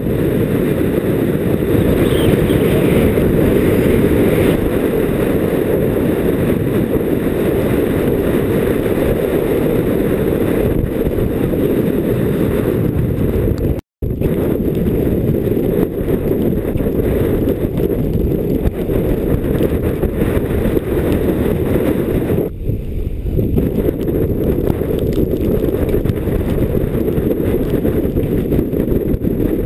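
Strong mountain wind buffeting a GoPro HD helmet camera's microphone: a loud, steady rumble. It cuts out for an instant about halfway through.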